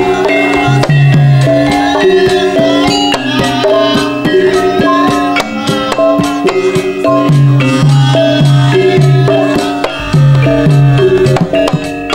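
Live Javanese gamelan music: metal-keyed instruments play a stepped melody of ringing notes over a steady beat of low hand-drum (kendang) strokes and sharper percussive hits.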